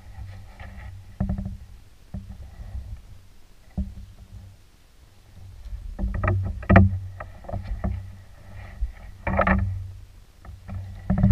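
Double-bladed paddle working a canoe: the blades dip and splash in the water every few seconds, with knocks of the paddle against the hull, and the louder strokes come in the second half.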